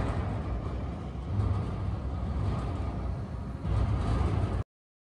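Excavator's diesel engine running with a steady low rumble that swells slightly near the end, then the sound cuts off suddenly.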